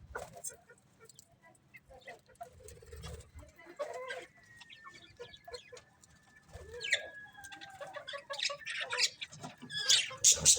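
Budgerigars chirping and chattering in short, scattered calls, growing busier and louder over the last few seconds.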